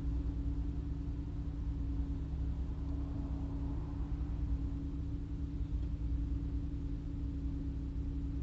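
A car idling while stopped in traffic, heard from inside the cabin: a steady low rumble with an even hum.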